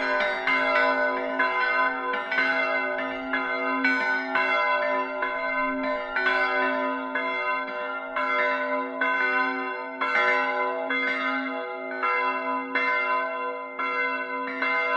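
A continuous peal of bells, struck in quick succession about two or three times a second, each strike ringing on over a steady low tone.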